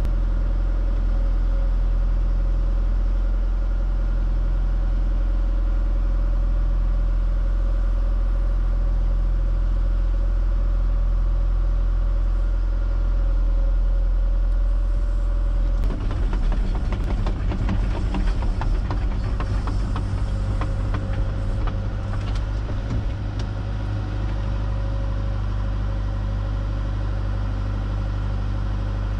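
Excavator's diesel engine running steadily, heard from inside the cab while the machine travels. About halfway through comes a few seconds of rattling and clanking from the machine moving over rough ground.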